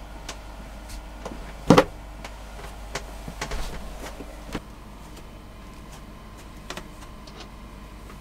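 Knocks, clicks and bumps of someone moving about inside a camper van's cabin, over a steady low hum. The loudest is a sharp double knock just under two seconds in, with a cluster of softer knocks and rustling around three and a half seconds and a few light clicks later.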